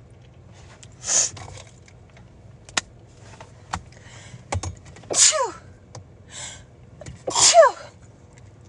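A person in a sneezing fit: a sharp burst about a second in, then two voiced sneezes around five and seven and a half seconds in, each with a falling cry. The last sneeze is the loudest, and a few light clicks fall between them.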